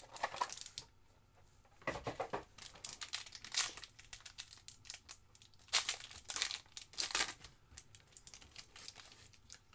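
A sealed trading-card box and a card pack's wrapper being torn open and crinkled by hand, heard as a string of short, irregular rustling and tearing bursts.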